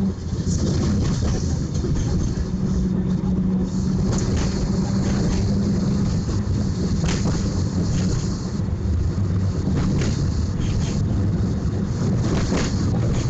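Tram running along the street, heard from inside the car: a steady rumble with a hum that fades out about halfway, and scattered clicks and knocks from the wheels and body.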